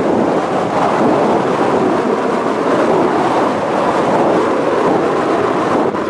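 Storm surf breaking on a sandy beach, with strong wind buffeting the microphone: a loud, steady rush of noise.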